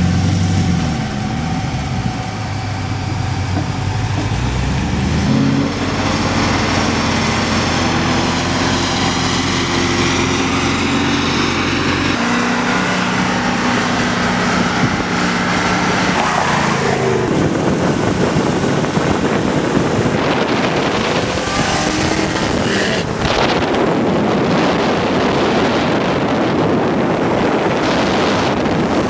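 A 2015 Chevrolet Camaro Z28's 7.0-litre LS7 V8 running on the road, its exhaust note holding steady pitches that shift in a few steps. From a bit past halfway, road and wind noise takes over.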